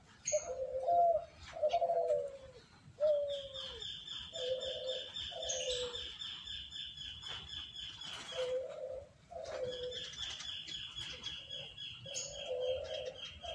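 Spotted dove (derkuku) cooing in repeated low phrases, its 'deg kutruuu kuuu' call. Over the middle and end a smaller bird chirps in a fast, high-pitched series.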